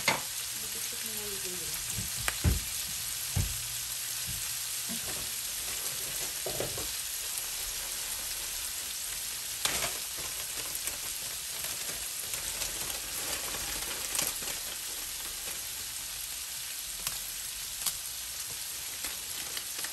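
Shrimp, onions and green chilies sizzling steadily in hot oil in a frying pan. A few short, sharp taps come through now and then, the loudest about two seconds in.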